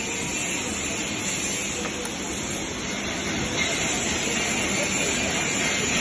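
Steady hiss of a GTAW (TIG) welding arc on steel pipe during a test weld.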